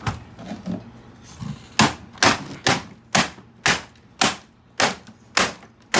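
A hammer striking the plastic body of a Dyson ball upright vacuum in a fast run of about nine sharp blows, roughly two a second, starting about two seconds in.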